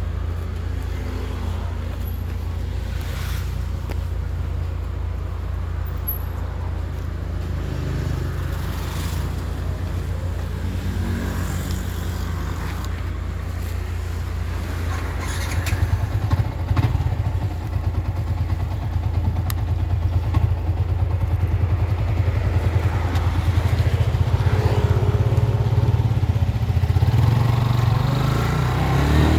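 Motorcycle engine running steadily at low revs, then growing louder and rising in pitch through the second half as the bike picks up speed.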